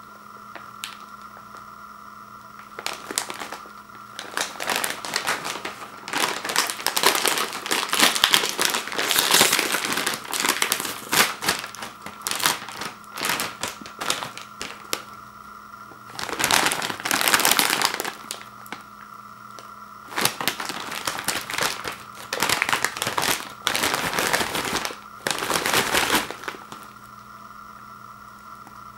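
Metallised plastic chip bag crinkling as it is handled and pulled open. The crinkling comes in several bursts of a few seconds each, with short pauses between.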